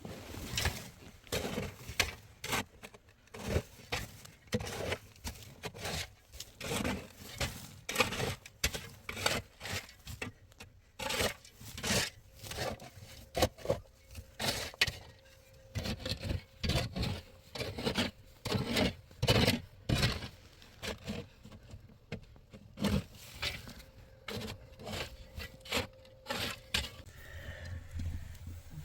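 Repeated rough scraping and knocking strokes, irregular, about one or two a second, like manual work with a hand tool on a hard, gritty surface.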